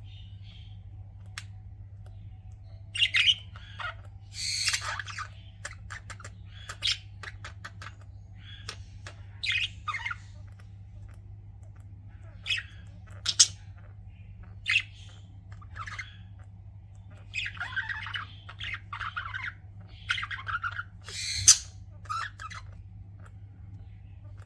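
Pet budgerigars chirping and squawking in short, irregular calls, over a steady low hum.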